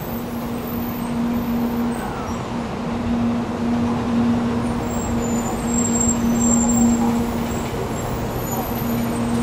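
700 series Shinkansen train: a steady low hum over a noisy rumble that grows slowly louder.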